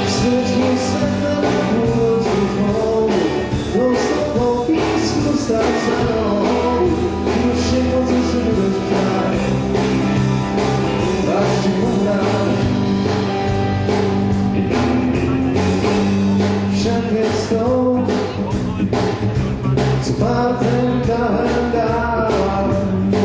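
Live rock band playing a song: a male singer's lead vocal over amplified electric guitars and a drum kit.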